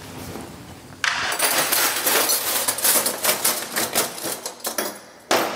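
Stainless steel Gorham flatware (forks, knives, spoons) clinking and rattling against itself as a handful is gathered and laid in a wooden drawer, with one louder clack near the end.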